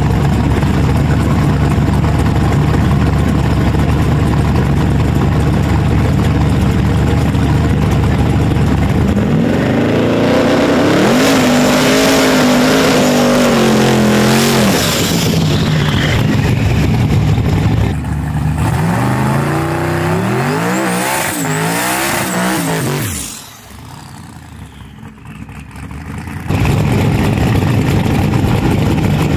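Street drag racing engines running loud. The first stretch is a heavy, steady rumble. About ten seconds in, one engine's pitch climbs and holds high for several seconds, and a second rising rev follows about halfway through. The sound drops off sharply near the end, then loud engine noise returns.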